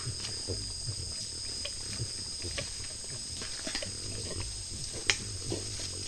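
Peccaries feeding on fallen fruit: short, irregular low grunts and chewing noises, over a steady high-pitched insect chorus. One sharp click about five seconds in.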